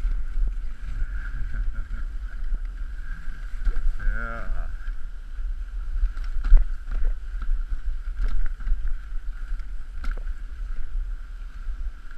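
Dog sled running over packed snow: the runners hiss and scrape steadily under a low rumble of wind and vibration on the camera, with a few sharp knocks as the sled rides over bumps. A brief wavering whine rises about four seconds in.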